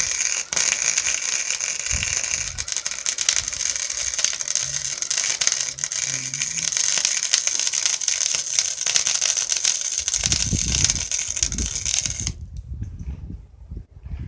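Electric arc welding: a steady, dense crackle and hiss of the arc as a weld is laid on the go-kart's steel pedal, cutting off suddenly about 12 seconds in. Low knocks and handling sounds follow near the end.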